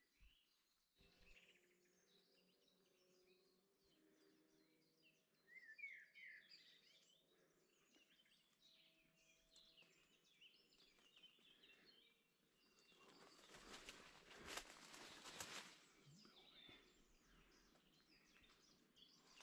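Faint woodland birdsong: several small birds chirping and calling. About two-thirds of the way through, a few seconds of louder rustling noise with crackles.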